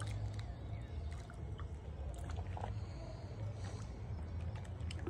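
Steady low rumble of wind buffeting the microphone, with a few faint clicks and ticks scattered through it.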